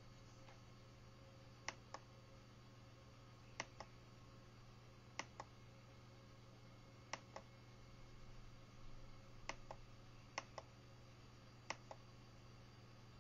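Keys on an SMC4-4-16A16B offline CNC controller being pressed one at a time while a program is edited. Each press is a pair of sharp clicks, press and release, seven presses every second or two, over a steady low electrical hum.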